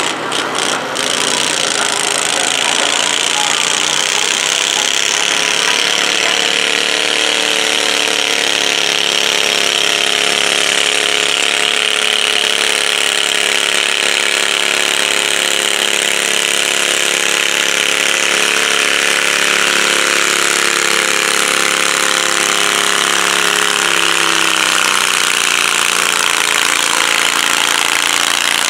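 Stock altered garden pulling tractor's engine running at high, steady revs while it pulls a stoneboat, its pitch sagging briefly under load and recovering near the end.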